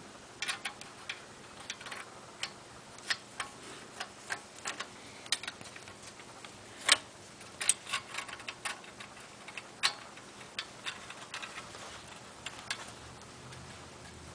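Chrome headset top cap being screwed by hand onto the threaded steering tube of a springer fork: irregular light clicks and ticks, with a louder click about seven seconds in and another near ten seconds.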